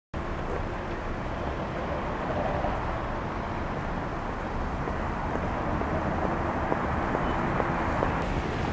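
Steady city street traffic noise: cars running past on the road.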